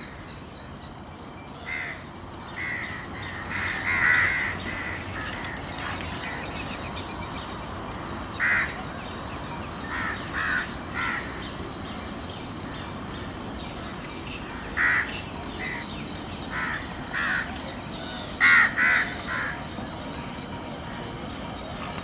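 Short, harsh, caw-like bird calls repeated in loose clusters every few seconds, the loudest a few seconds in and near the end, over a steady high-pitched hiss of outdoor ambience.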